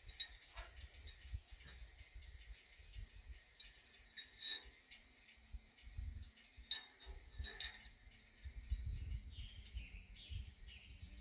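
A handful of light, spaced-out clinks of a metal utensil against a stainless steel saucepan as aluminium bread machine paddles are fished out of hot sealing water, over a low rumble.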